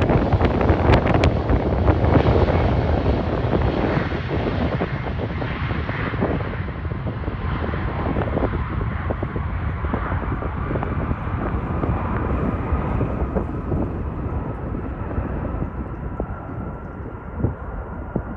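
Jet airliner's engines passing and moving away, the loud rush slowly fading as the higher sound falls away first. This leaves a low rumble with a faint thin whine toward the end.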